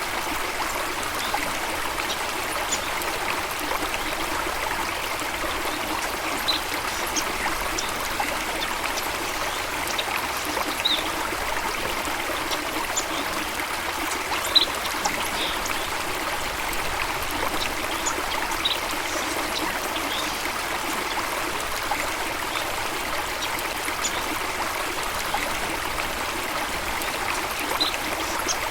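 Running water of a stream or small waterfall, a steady, even rush, with a few brief high bird chirps scattered through it.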